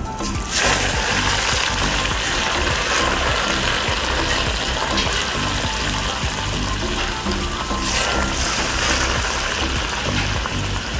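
Water-soaked sancho (Korean prickly ash) seeds sizzling and bubbling hard in cooking oil in a wok, the water in the seeds boiling off in the hot oil; the sizzle jumps up sharply about half a second in. Background music with a steady beat underneath.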